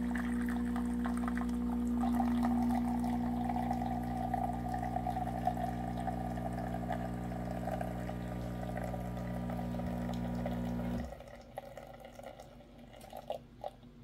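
Terra Kaffe TK-02 super-automatic espresso machine brewing a shot: its pump runs with a steady hum while espresso streams splash into a glass mug. The pump cuts off suddenly about eleven seconds in, leaving a few drips.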